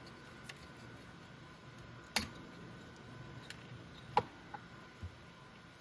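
Scattered small clicks of plastic multi-pin wiring connectors being handled and worked loose, with two sharper clicks about two and four seconds in.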